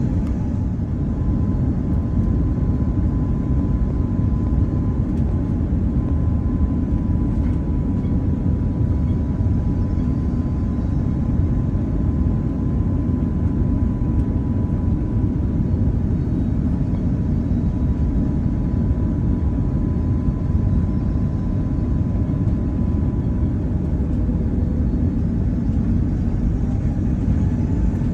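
Airbus A330-300 cabin noise: a steady low rumble of engines and airflow, with a faint steady high whine above it.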